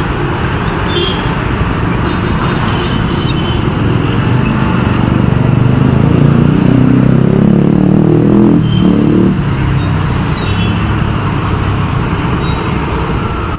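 City street traffic: a steady rumble of engines and tyres from passing vehicles, growing louder through the middle as traffic goes close by, with a few faint short high chirps over it.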